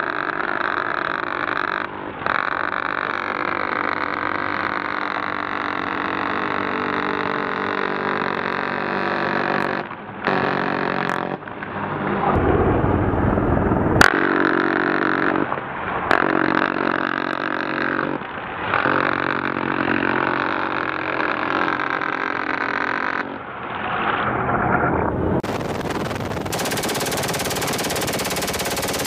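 Helicopter machine guns firing at a very high rate in long bursts with short breaks, heard as a continuous buzz rather than separate shots. About 25 seconds in the sound turns hissier and fuller.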